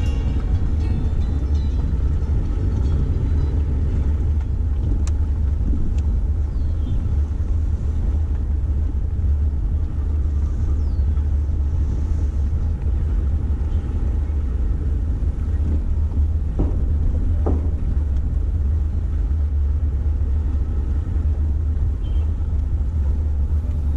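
A vehicle driving slowly, its engine and tyres giving a steady low rumble that holds the same level throughout.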